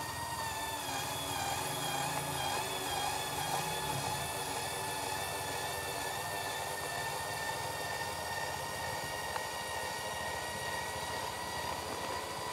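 Steady motor whine from the tipping mechanism of a scratch-built 1/10 scale RC Euclid R18 dump truck as its bed rises, holding an even pitch from about halfway through. Beneath it is the wavering drone of a dirt bike engine some way off.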